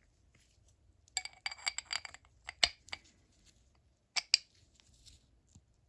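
Small steel parts of a disassembled Snap-On 71-M ratchet clinking together as they are handled. A quick run of light metallic clicks comes about a second in, then a few louder clinks, then two sharp clinks a little after four seconds.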